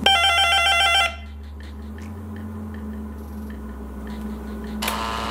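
Apartment door intercom buzzing: a loud warbling electronic tone for about a second, over a low steady hum, then a second buzz starts near the end.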